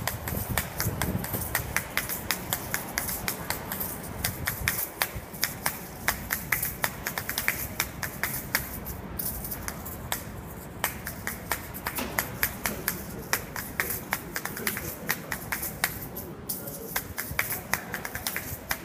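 Asalato (paired shakers joined by a cord) played fast: rapid rhythmic clacks of the two shells striking together, with seed rattle, broken by a few short pauses.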